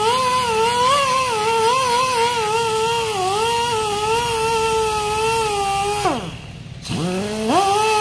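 A handheld rotary buffer with an abrasive disc whining steadily as it roughens the rubber of a truck inner tube, its pitch wavering as the disc is pressed on; about six seconds in it is let off and winds down, then spins back up a second later.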